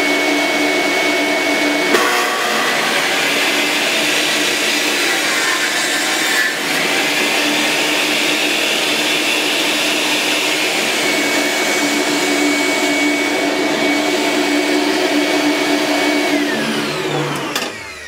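Table saw and the shop vac drawing dust from it running together, a loud steady whine while a plywood panel is cut. About sixteen seconds in, the saw is switched off and winds down, its pitch falling.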